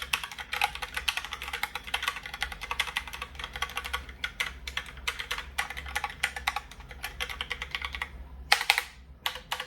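Typing on a Logitech Pop Keys mechanical keyboard: a fast, steady run of key clicks, then a short pause and a few louder single clacks near the end.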